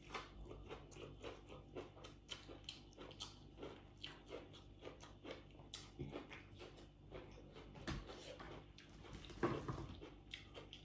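A person chewing a mouthful of crunchy food close to the microphone: a faint, irregular run of small crisp crunches a few times a second, with a louder crunch about nine and a half seconds in.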